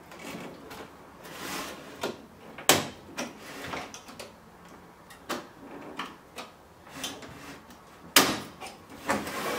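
Sharp clicks and knocks of an LCD panel's sheet-metal frame being gripped, turned and shifted on a wooden workbench, with short scrapes between them; the loudest knocks come about a quarter of the way in and again near the end.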